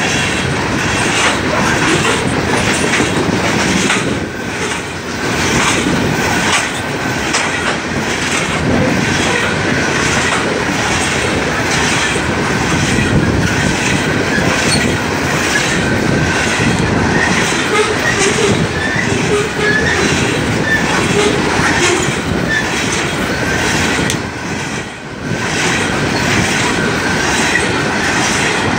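Coal train hopper cars rolling past close by, their steel wheels clicking over the rail joints in a steady, even rhythm. Brief, faint wheel squeals come now and then around the middle.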